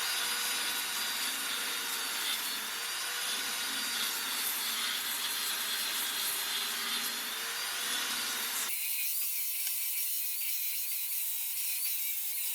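Small power tool grinding away the weld seam inside a drilled hole in a steel square tube: a steady rasping grind with a wavering whine. About nine seconds in the sound changes abruptly and loses its low end.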